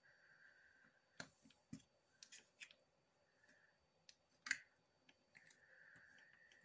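Faint, scattered clicks and taps of a plastic clay cutter and fingers handling a block of polymer clay on a cutting mat, with soft rubbing in between; the sharpest click comes a little past the middle.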